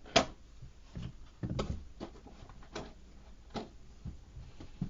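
Packaging of a ratchet and socket set being handled and opened by hand: a series of separate clicks and knocks, the loudest about a quarter second in.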